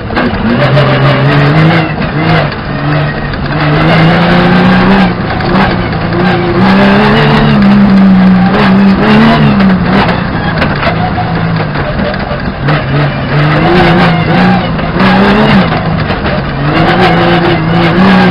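Rally car engine heard from inside the cabin, revving hard and rising and falling in pitch over and over as it shifts gear and lifts for corners on a loose dirt stage. Sharp clicks of gravel and stones hitting the car run throughout.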